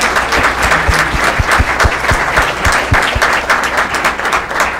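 A room full of people applauding, dense and loud.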